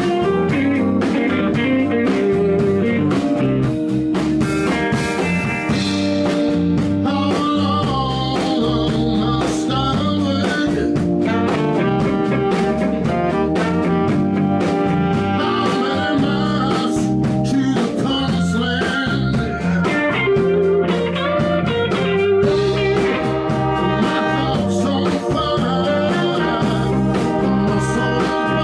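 Blues band playing live, with electric guitars and a horn section of saxophone and trumpet over a steady beat.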